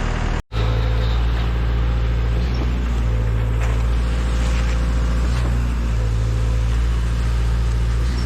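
A heavy diesel truck engine running steadily, with a brief dropout about half a second in.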